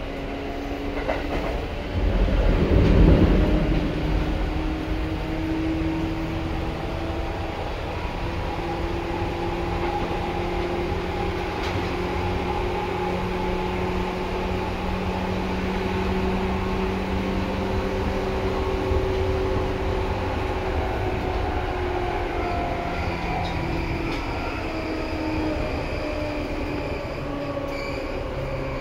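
Seibu 2000 series electric commuter train running, heard from inside the car: a loud steady drone of traction motors and running gear, with several humming tones that slowly rise in pitch and then sink near the end. A loud low rumble comes about two to three seconds in.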